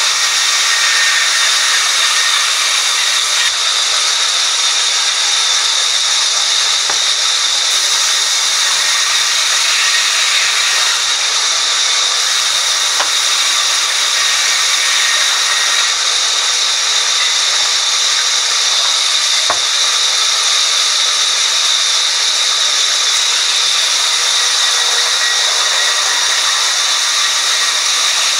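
Sawmill band saw running and ripping lengthwise through a timber plank fed along its table: a steady, loud, high hissing whine of blade in wood that holds even throughout.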